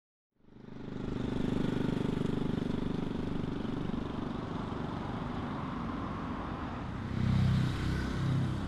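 Road traffic: motor vehicle engines running steadily, fading in after a moment of silence, with a louder vehicle rumble swelling near the end.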